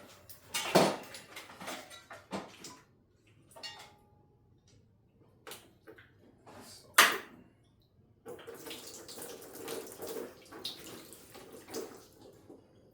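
Engine coolant draining and splashing into a bucket, with a few knocks, the loudest about seven seconds in; from about eight seconds a steadier stream pours until near the end.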